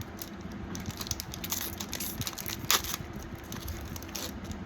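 Foil-wrapped Magic: The Gathering booster packs crinkling and tapping as they are handled and laid out, with one sharper click a little before the middle.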